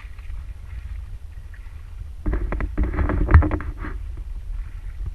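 Steady low rumble with a cluster of knocks and clatter about two seconds in, the loudest hit a little past the middle, then a few more scattered knocks.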